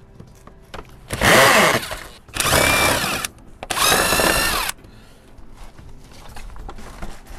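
DeWalt cordless drill/driver run in three bursts of about a second each, its motor whine rising and settling in each, backing out the bolts that hold the car's underbody cover.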